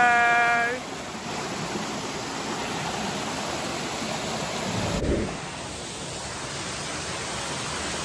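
A small waterfall cascading over rock ledges and a shallow rocky stream running, a steady rush of water. A brief low thump comes about five seconds in.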